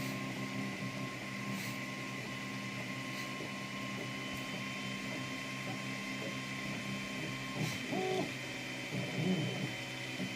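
Anet A8 3D printer's stepper motors whining steadily while it prints, with several steady tones over a low hum. Near the end a high tone cuts off and short pitched chirps come in as the print head changes moves.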